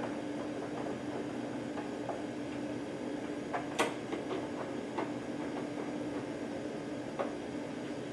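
Screwdriver turning in the front door screws of a Hach TU5400sc turbidimeter as they are tightened: a few small clicks and scrapes, the sharpest a little under four seconds in, over a steady low hum.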